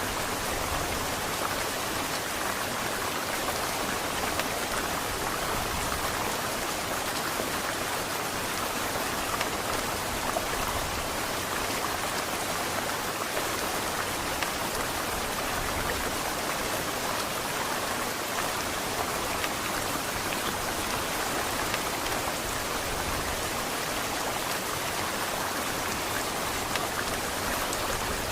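Heavy rain falling steadily: a dense, even hiss of downpour with scattered drop ticks.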